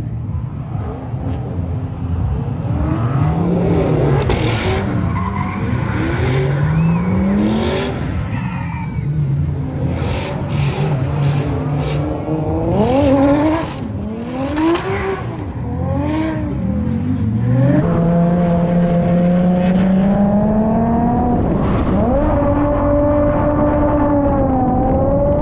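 A car drifting: the engine's revs swing up and down, with bursts of tyre squeal through the first half. About two thirds of the way in, the engine settles into steady high revs that slowly climb.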